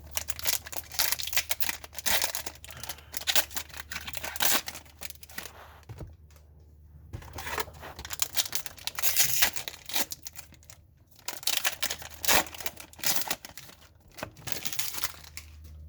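Foil-free trading card pack wrappers being torn open and crinkled by hand, several packs in a row, in quick bursts with short pauses about six and eleven seconds in. A faint steady low hum sits underneath.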